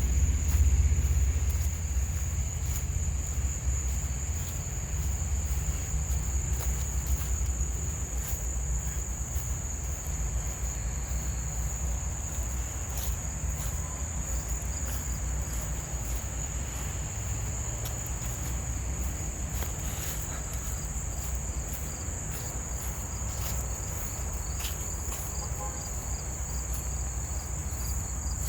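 Steady, high-pitched chorus of insects, with a low rumble underneath that is strongest in the first couple of seconds and scattered faint clicks.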